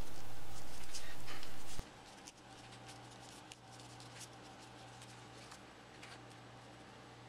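A steady hum and hiss that cuts off suddenly about two seconds in, then faint scratching and small ticks of a cotton swab and fingers working over a skateboard ball bearing's plastic ball cage.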